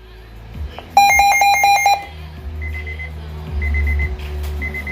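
Electronic alarm beeping: a loud, rapid burst of about eight beeps for a second, then quieter groups of four short high-pitched beeps repeating about once a second.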